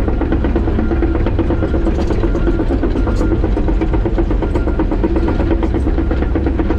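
John Deere 130G excavator's diesel engine running steadily, with scattered clanks and knocks as the machine works.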